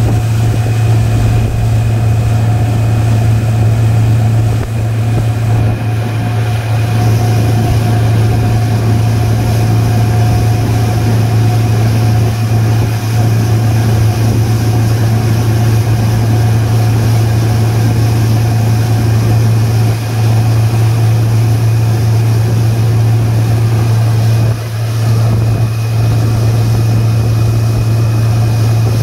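Motorboat engine running steadily at speed while towing a tube, a continuous low drone with the hiss of the wake and wind over it.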